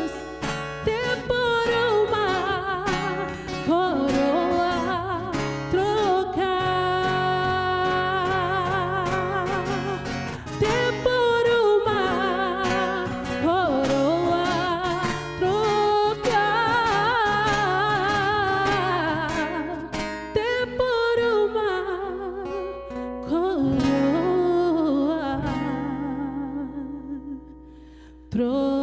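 A woman singing a Portuguese gospel worship song with vibrato, over a strummed acoustic guitar. The music dies away over the last few seconds.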